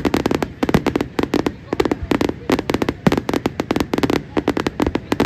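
Fireworks display: a dense, uneven barrage of sharp bangs and crackles, many each second, with no pause.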